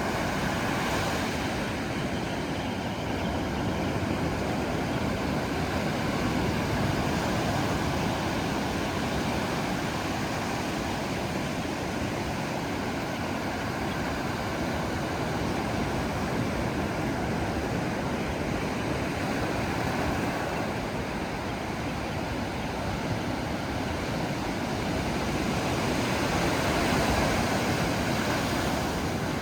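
Steady rushing noise of ocean surf, swelling gently a few times, with some wind on the microphone.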